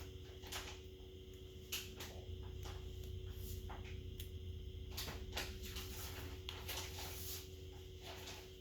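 Small, irregular clicks and taps of tools and plastic smartphone parts being handled during a repair, over a steady electrical hum.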